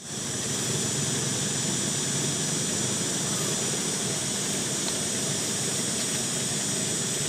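Steady outdoor background noise: an even high hiss over a low rumble, with no distinct events.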